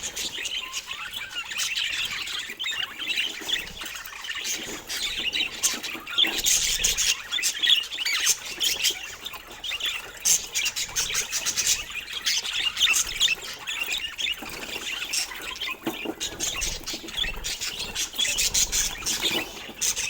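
Budgerigars chattering: a continuous stream of quick, high chirps and warbles, with no pause.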